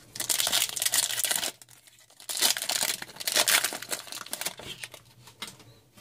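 Foil wrapper of a hockey card pack being torn open and crinkled, twice, each time for over a second, then lighter rustling.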